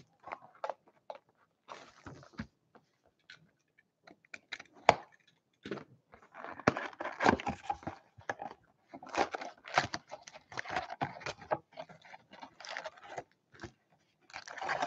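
Plastic shrink wrap crackling as it is torn and pulled off a cardboard hockey card box, then the box opened and its foil packs lifted out. The sound is irregular crinkling and rustling with small sharp ticks, densest in the middle and later part.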